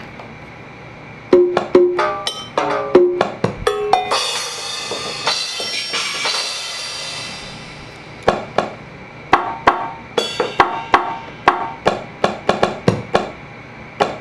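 Electronic sound-effect toy playing short pitched percussion taps. A shimmering, bell-like sound rings for several seconds in the middle, then the taps run on at about three a second.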